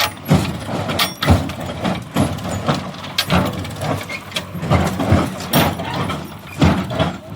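Heavy diesel machinery working: an engine running under many irregular clanks and thuds, several a second.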